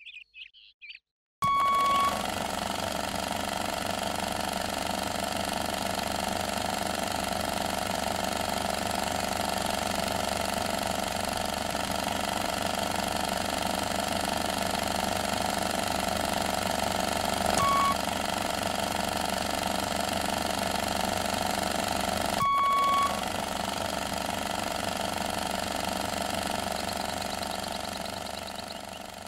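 A steady, dense electronic hum made of many held tones, broken by three short beeps: one about a second and a half in, a brief one past halfway, and another about three quarters through. The hum fades out near the end.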